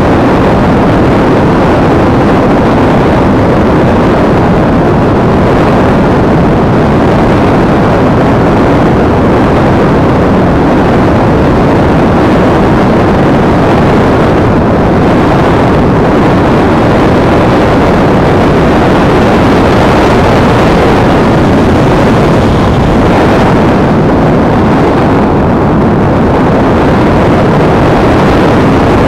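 Loud, steady rush of wind and airflow over the microphone of an action camera riding on an EasyStar RC model plane in flight, a dense rumble with no clear motor tone standing out.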